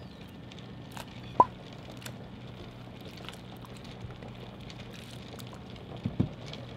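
Pot of water at a rolling boil, bubbling steadily as fresh kalguksu noodles are dropped in and stirred with chopsticks, over a steady low hum. A sharp clink about a second and a half in is the loudest sound, with a couple of softer knocks near the end.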